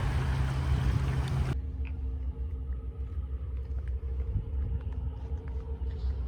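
Strong coastal wind buffeting the microphone as a heavy low rumble. A wide hiss of wind and surf cuts off abruptly about a second and a half in, leaving only the low rumble and a faint steady hum.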